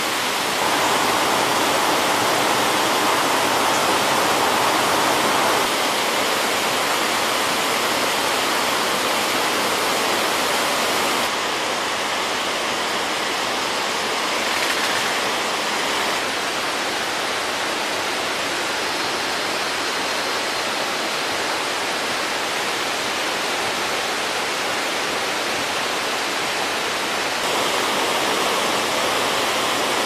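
Waterfall in spate after heavy rain, muddy floodwater pouring over rocks: a loud, steady rush of turbulent water that steps a little in level and tone a few times.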